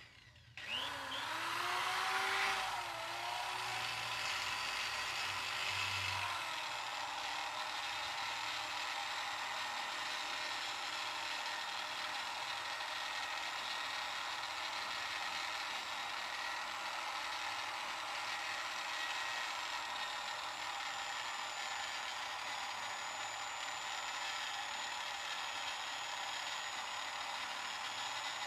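Electric drill spinning a homemade cloth buffing pad, polishing a motorcycle engine block with Autosol. It starts about half a second in, speeds up, wavers in pitch for the first few seconds as it is worked against the metal, then runs steadily.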